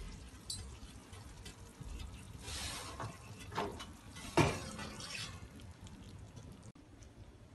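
Round metal baking tray handled on an oven's wire rack: a few light knocks, then a louder metallic clunk about four and a half seconds in as it is gripped and pulled out, with soft hissing around it.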